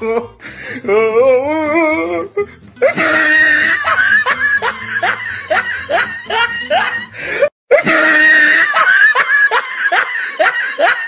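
Loud laughter in quick repeated bursts over background music, with a wavering wail at the start and a brief break about two-thirds of the way through.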